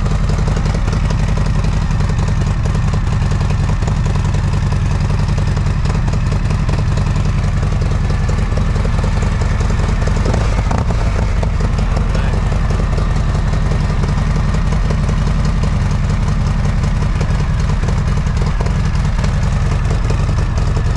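Harley-Davidson Sport Glide's Milwaukee-Eight 107 V-twin, fitted with an S&S cam, idling steadily through its stock exhaust with modified mufflers.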